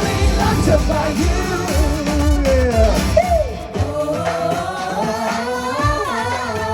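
Pop song sung by a group over a backing track with a steady bass beat. The beat drops out a little over halfway, leaving the voices holding long notes.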